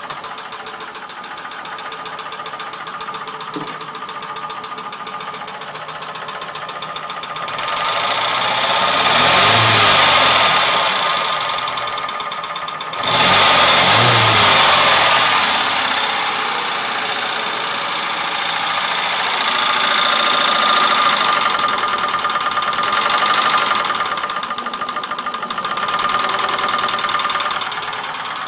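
Ford Sierra 2.0 OHC carburetted four-cylinder engine running with a knock, revved up several times: a slow rise about a third of the way in, a sharp rev about halfway, and smaller rises later.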